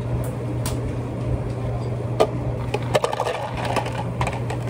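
Ice cubes clinking and clattering against a clear plastic cup, a string of sharp clicks that grows busier toward the end as liquid is poured over the ice from a plastic jug. A steady low hum runs underneath.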